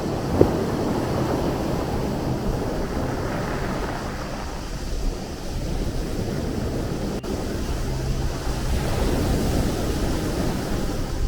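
Sea waves washing in as a continuous rush of surf, swelling a little near the end. There is a brief low thump about half a second in.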